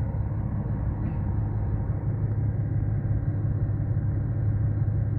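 Steady low rumble of an engine running at a constant speed.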